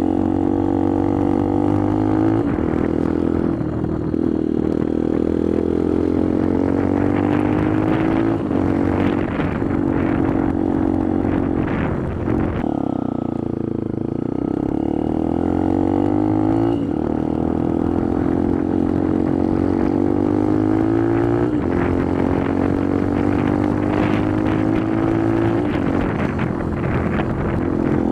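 Benelli TNT 125's small single-cylinder engine pulling up through the gears, its pitch rising and dropping back at each shift. Around the middle it slows and the pitch falls off, then it picks up and climbs through the gears again.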